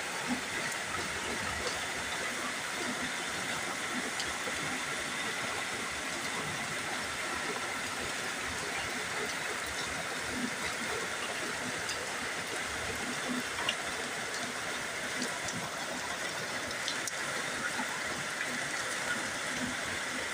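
Steady heavy rain: a constant hiss with a few small taps scattered through it.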